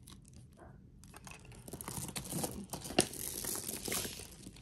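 Crinkling rustle of packaging while a tagged necklace is handled, with one sharp click about three seconds in.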